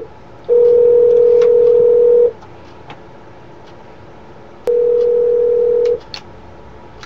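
Telephone ringback tone heard over the line of an outgoing call: a steady low tone for about two seconds, then after a pause a second, shorter tone that begins with a click.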